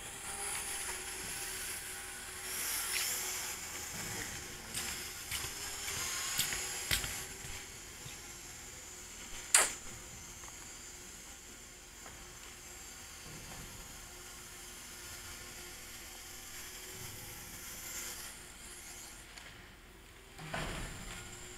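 Twin small electric motors and propellers of a flying-wing RC model whining in flight, rising and falling as the throttle changes for differential-thrust steering. A single sharp knock stands out about nine and a half seconds in.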